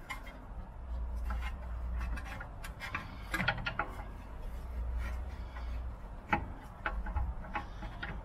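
Small scrapes and clicks of a screwdriver prising a plastic ABS wheel-speed sensor out of a BMW E91's rear hub, the sensor held tight in its bore after years in place. The clicks come irregularly, thickest about three seconds in, over a low rumble that comes and goes.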